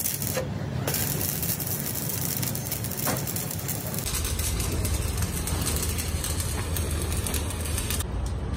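Stick (arc) welding a steel fitting onto a steel air compressor tank: the arc crackles and sizzles steadily, breaks briefly just after it starts, and stops near the end. A low hum runs underneath.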